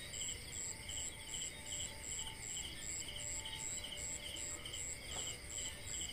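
Night insects, crickets, chirping in a steady rhythm: a high, clipped chirp repeating about three times a second over a lower trilled chirp at a similar pace.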